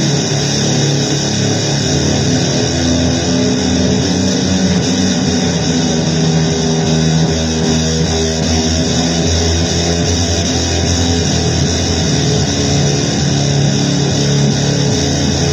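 Loud, distorted noise music: a dense, unbroken wall of harsh, guitar-like sound that holds steady throughout.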